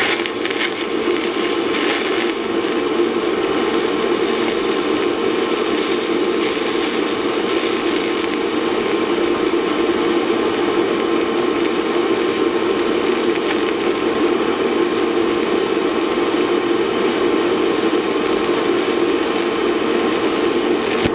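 Lift-TIG welding arc burning steadily on steel, a continuous even rushing hiss.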